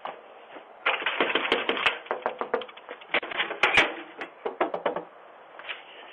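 A rapid, irregular clatter of sharp clicks and knocks, starting about a second in and lasting about four seconds.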